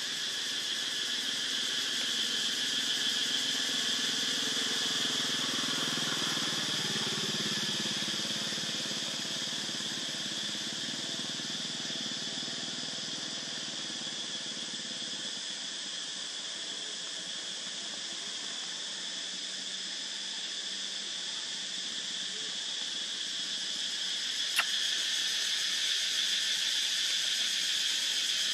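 Steady, high-pitched chorus of forest insects droning without a break, with a single sharp click late on.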